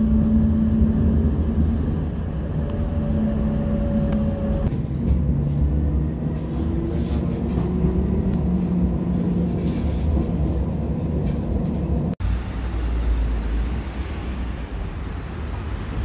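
Inside a moving Cologne Stadtbahn tram: a low running rumble with steady hum tones, then whining motor tones that rise and fall as it changes speed. A sudden brief break comes about twelve seconds in, followed by a steadier low rumble.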